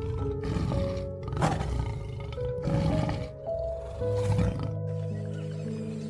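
Tigers growling in several short, rough calls over background music; the growls stop about five seconds in.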